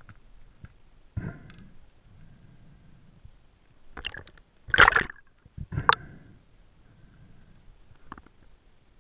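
Water noise and knocks picked up by a camera underwater: scattered clicks and taps from speargun and fish handling, then a loud rush of water and bubbles about four to six seconds in.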